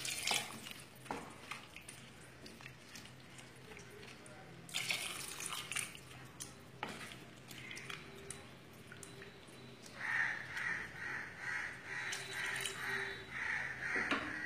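Warm water poured into a pan of cooked tomatoes, dates and raisins, splashing, then a wooden spatula stirring and scraping through the liquid. From about ten seconds in, a rapid series of repeated calls sounds in the background, about two or three a second.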